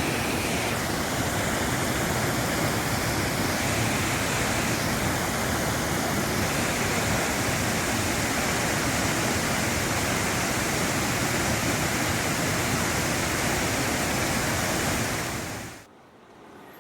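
Waterfall: water rushing steadily, then cutting off suddenly near the end.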